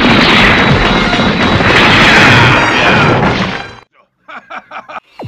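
Animated-film sound effect of an explosion with rock shattering: a loud, dense crashing rumble that cuts off suddenly about four seconds in, followed by a few short faint pulses near the end.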